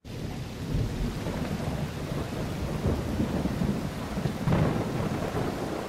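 Rain falling with thunder rumbling, the thunder swelling loudest about four and a half seconds in.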